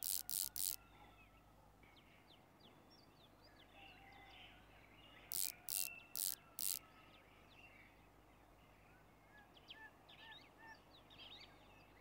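Socket ratchet being worked on the bolts of a van's passenger seat: a run of four quick ratcheting strokes at the start and another run of four about five and a half seconds in. Birds chirp faintly in between.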